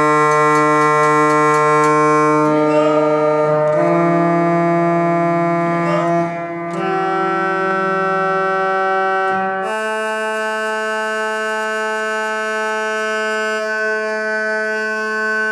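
Pipe organ played from its keyboard: slow, sustained chords held for a few seconds each, moving to a new chord about four times.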